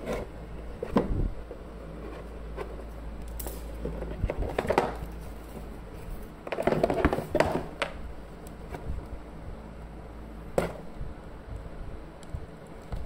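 A cardboard shipping box being handled and shifted on a hard floor: irregular knocks, scrapes and rustles, with a sharp knock about two-thirds of the way through.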